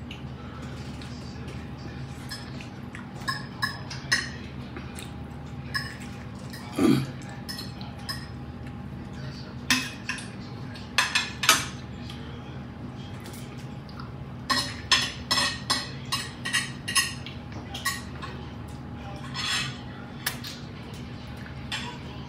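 Metal fork and knife clinking and scraping against a ceramic dinner plate while eating: scattered sharp clicks, busier about halfway through and again a little later, over a steady low hum.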